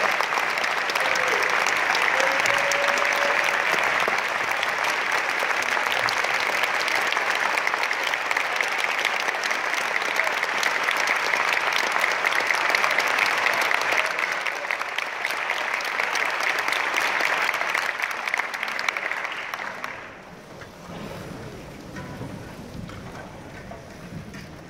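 Audience applause, dense and steady, that dies away about twenty seconds in, leaving quieter audience noise.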